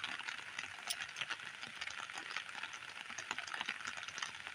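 Light rain pattering: a steady crackling hiss with many small irregular ticks.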